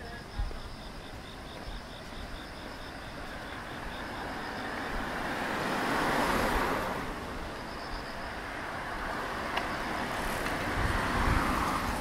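Cars driving past close by on a narrow street, their engine and tyre noise swelling and fading: loudest about halfway through and again near the end.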